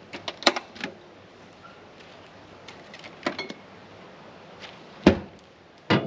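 A run of short clinks and knocks from handling gear while a beer is fetched, with a heavier thump about five seconds in.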